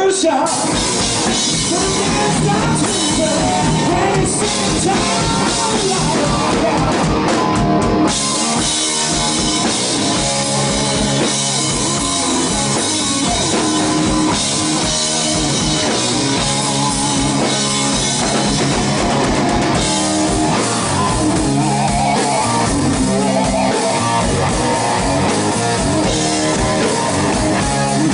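Live hard-rock band playing: electric guitars, bass and drum kit.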